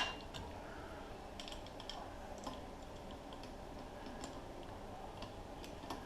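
A sharp metallic click, then scattered light clicks and clinks of metal hand tools as different wrench sizes are tried on an axle nut.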